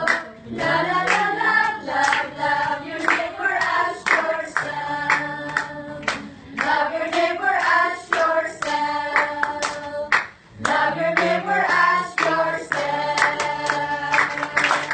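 A song sung by a group of voices together, with hand claps keeping time throughout.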